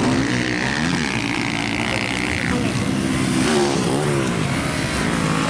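Several motocross bikes' engines revving on the dirt track, their pitches rising and falling and overlapping as the riders accelerate and back off. A steady high note holds through the first two seconds or so.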